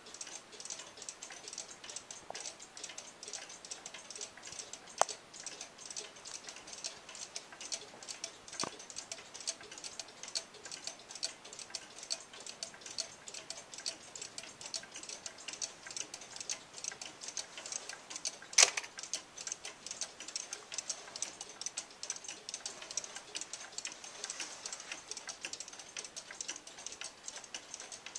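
Many weight-driven cuckoo clocks ticking together, their escapements making a dense, uneven stream of overlapping ticks. Two sharper clicks stand out, one about five seconds in and a louder one a little past the middle.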